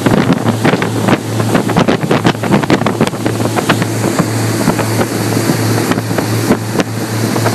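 Motorboat running at speed: a steady low engine hum under a wash of water and wind noise, with frequent sharp slaps and wind buffeting the microphone.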